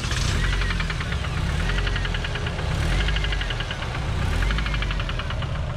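Turbocharged Nissan KA24DE engine running just after being started, a steady low rumble with a fast ticking that comes and goes.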